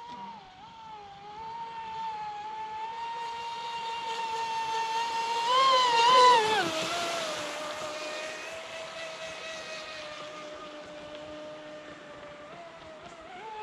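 Brushless electric motor of a Pro Boat Impulse 32 radio-controlled boat whining at speed. It grows louder and peaks about six seconds in with a rush of water, then drops in pitch and fades as the boat runs past and away, and the pitch climbs again near the end.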